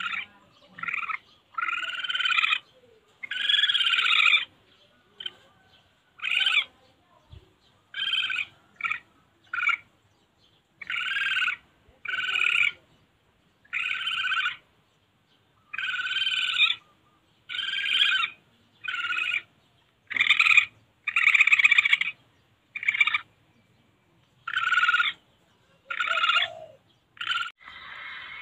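Civet calls played as a hunting lure: a long series of short, harsh, pitched calls, about one a second, in uneven groups.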